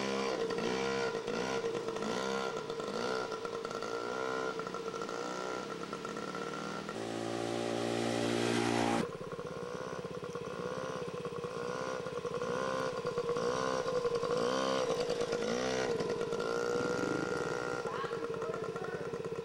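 Small children's dirt bike engine revving up and down over and over, its pitch rising and falling with each short opening of the throttle. It holds a steadier note for a couple of seconds before breaking off abruptly about halfway through, then the repeated revving goes on.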